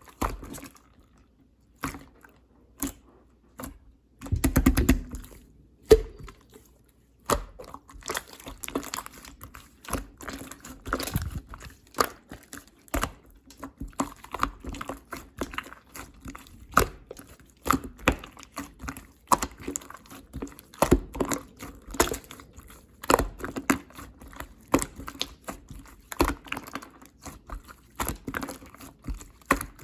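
Clear slime being squeezed and pressed by hand, giving irregular sticky clicks and small air pops, with a louder squelch about four seconds in.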